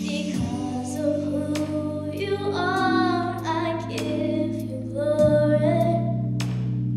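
A girl singing a slow melody solo into a microphone, with a slight waver on held notes, over sustained accompaniment chords that change every two to three seconds.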